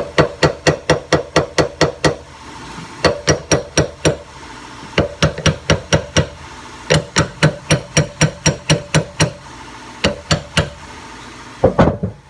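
Hammer striking metal in quick bursts of about six blows a second, with short pauses between the bursts.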